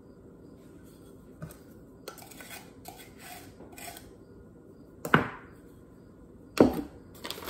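A knife scraping across a measuring cup of gluten-free flour to level it, followed by two sharp knocks about a second and a half apart as utensils are set down and handled on a wooden table.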